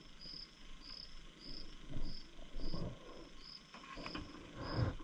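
A cricket chirping in a steady rhythm, about one and a half to two high chirps a second. Over it come a few short, low rustles and knocks of belongings being handled during a bag search, the loudest near the end.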